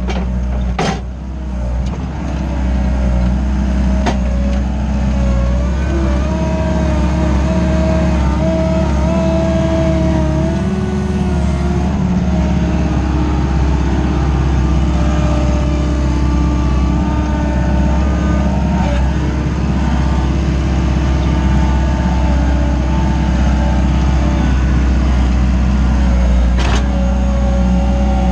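Wacker Neuson 901s skid steer loader's 50 kW diesel engine running steadily under load, heard from the operator's cab, with a whine that wavers in pitch over the engine note. A few short knocks sound, one about a second in and one near the end.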